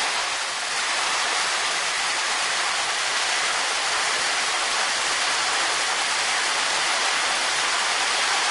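Heavy rain pouring down in a dense, steady hiss, splashing on a flooded street.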